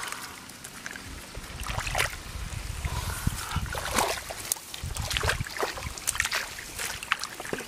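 Irregular splashing and sloshing in the shallow muddy water of a flooded rice paddy as bare hands grab a fish and feet wade through the water, over a low rumble.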